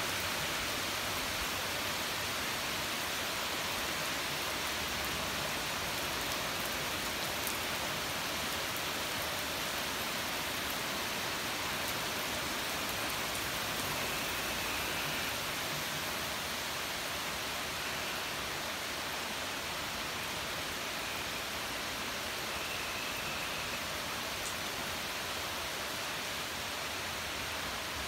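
Steady rain falling, a continuous even hiss without a break.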